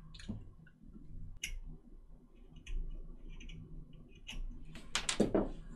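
Scalpel blade shaving a small piece of wood held in the fingers: short scraping clicks, irregularly spaced about a second apart, with the loudest strokes about five seconds in.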